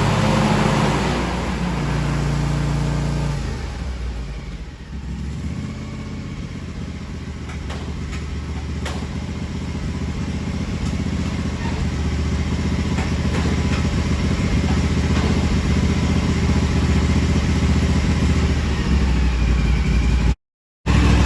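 The Hustler Raptor XD 60 zero-turn mower's two-cylinder Kawasaki FR730V engine running steadily. The engine sound drops away about four seconds in, then slowly grows louder again. A brief dropout to silence comes near the end.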